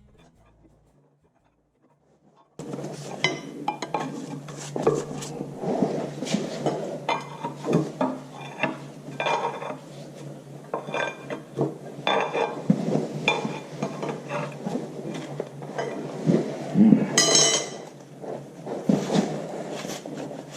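Metal tools clinking, tapping and scraping on the bull pinion shaft seal retainer as it is worked out of the tractor housing: a run of irregular metallic knocks that starts about two and a half seconds in.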